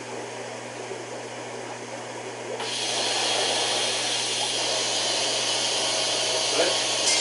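TIG welding torch striking an arc about two and a half seconds in and then hissing steadily as it tack-welds the joints of a steel aquarium rack, over a low electrical hum.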